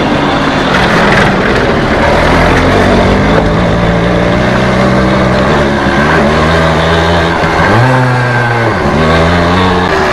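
100cc two-stroke single-cylinder motorcycle engine running under way, revs holding steady and then dropping and climbing again a few times in the second half, over a steady rushing noise.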